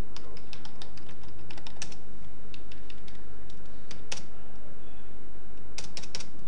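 Computer keyboard keystrokes: irregular typing clicks, with a quick run of keys about two seconds in and another cluster near the end, over a steady low hum.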